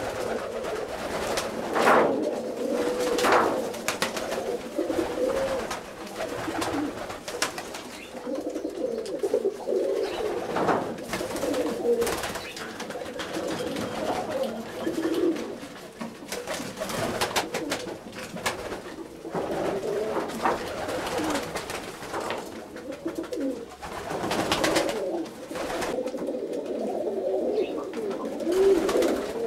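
Domestic roller pigeons cooing steadily in a small loft, a continuous low warbling murmur, with a few short sharp clicks among the coos.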